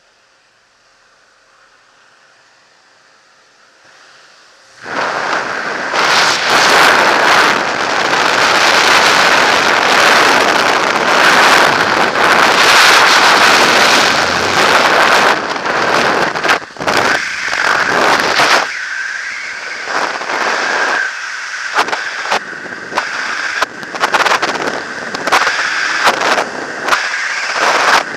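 Wind rushing over a body-worn camera's microphone during a skydive exit from a propeller plane and into freefall. It is low and muffled for the first few seconds, then about five seconds in a sudden loud rush of wind starts and keeps on, buffeting in gusts.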